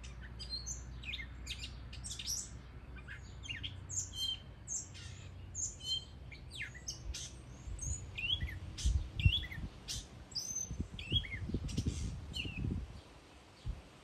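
Northern mockingbird singing: a fast run of varied short chirps and down-slurred whistled notes. Low thumps join in during the second half, the loudest about nine seconds in.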